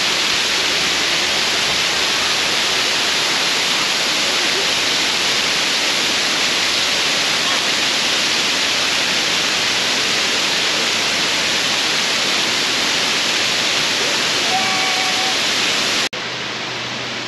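Bridal Veil Falls, a thin sheet of water cascading down a steep rock face, rushing steadily and loudly; near the end it drops suddenly to a quieter rush.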